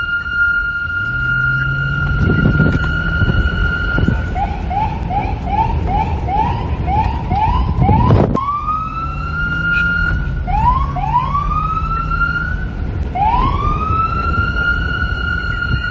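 Police car siren switching patterns: a steady high tone, then a fast run of short rising whoops, about two to three a second, then several rising sweeps that each settle back into the high held tone. Wind and traffic rumble run underneath, with a sharp click about eight seconds in.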